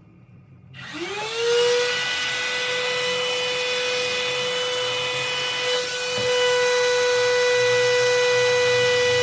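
Handheld electric heat gun switched on about a second in: its fan motor spins up with a quick rising whine, then runs steadily, whining over the hiss of blowing air.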